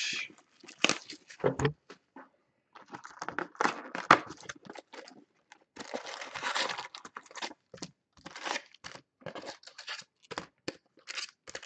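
A Panini Prizm baseball card box being opened by hand: packaging crinkling and tearing, cardboard flaps handled, and foil packs rustling as they are pulled out, in quick irregular bursts.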